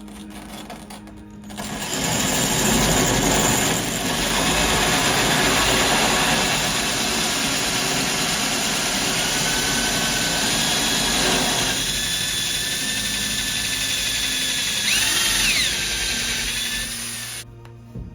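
Power drill boring a hole through ceramic shower tile with a 3/8-inch carbide or diamond tile bit: a steady grinding whir that starts about a second and a half in and stops shortly before the end. A thin, high whine joins in partway through.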